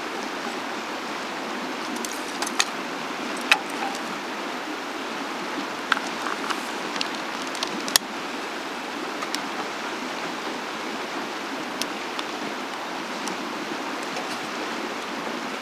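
Steady rushing background hiss, with scattered sharp clicks and snaps as kindling in a steel fire pit is lit with a long-nosed lighter.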